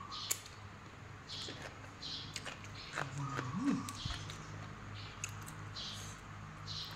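Close-up wet chewing of a mouthful of spicy cucumber salad with rice noodles: soft smacking sounds repeating every half second or so, with a few small lip clicks.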